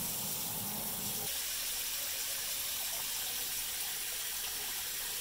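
Garden hose spray nozzle spraying water into a plastic pickup in-bed trunk: a steady hiss of spray spattering on the wet plastic floor as the trunk fills.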